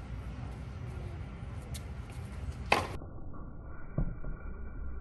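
Tennis serve: a single sharp pop of racket on ball a little before the middle, then a second, duller ball hit about a second later, over a low steady background rumble. The sound turns muffled just after the serve.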